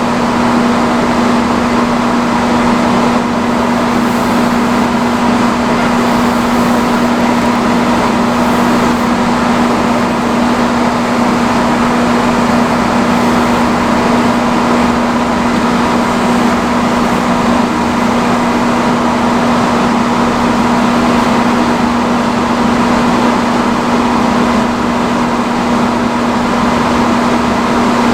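Vintage salon chair hood hair dryer running steadily on its highest setting: a loud, even rush of blown air over a constant low motor hum.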